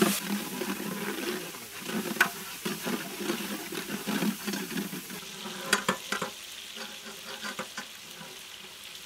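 Tomatoes, shallots and garlic frying in oil in a large metal pan, sizzling while a metal spatula stirs and scrapes against the pan, with a few sharp clicks. The stirring stops about six seconds in, leaving a quieter, even sizzle.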